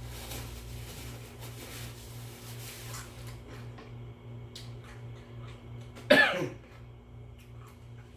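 A single short cough about six seconds in, sharp at the start and trailing off within half a second, over a steady low hum and a few faint clicks.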